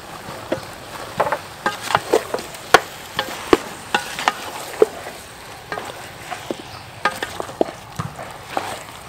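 A wooden spatula knocks and scrapes against the side of a large metal pot while chunks of meat are mixed with chili powder and spices. The clacks come irregularly, about two a second, over a light steady hiss.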